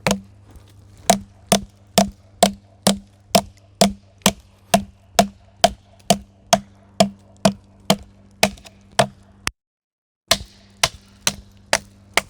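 Small multitool hatchet chopping into wood: a steady run of sharp blows, about two a second, with a short break near the end before the strikes resume.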